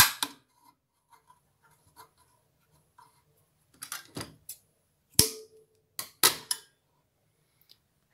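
Scattered clicks and knocks of small craft tools being handled and set down on the worktable: one sharp click at the start, a cluster about four seconds in, and a loud knock with a brief ringing tone just after five seconds followed by two more about a second later.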